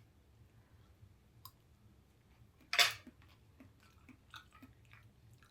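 A person eating roast chicken, with quiet chewing and small mouth clicks. One sharp clatter comes about three seconds in.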